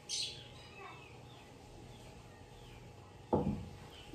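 Faint birds chirping in the background, short calls recurring every second or so. A brief hiss right at the start and, about three seconds in, a louder short sound that slides down in pitch.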